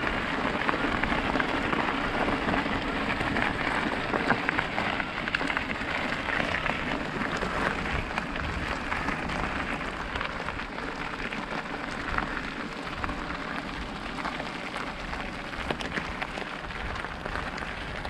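Mountain bike riding over a gravel track: tyres crunching and crackling over loose stones, mixed with a steady rush of wind on the mic.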